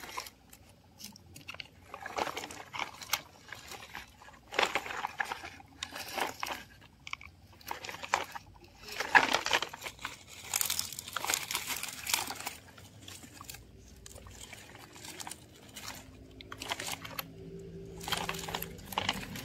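Plastic toy dump trucks pushed by hand over dry dirt, gravel and dead leaves: irregular crunching and scraping of the wheels and loose debris.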